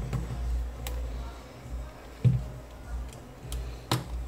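Plastic clips of a Samsung Galaxy J7 Core's housing clicking loose as it is pried apart by hand: a few sharp clicks, the loudest about halfway through with a low knock.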